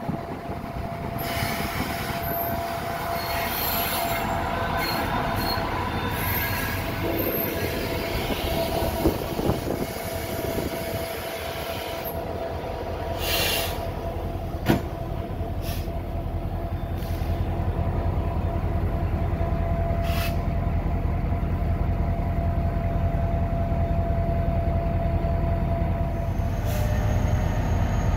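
Passenger train coaches rolling along the rails with a steady high wheel squeal and a few sharp knocks over the track. A low rumble grows near the end.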